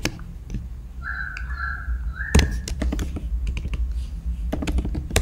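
Typing on a computer keyboard: a scatter of irregular key clicks through the second half, led by one louder thunk, over a low steady hum. About a second in, a faint held tone sounds for a second and a half.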